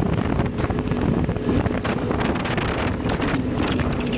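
Wind buffeting the microphone over a jet ski's engine running steadily at speed.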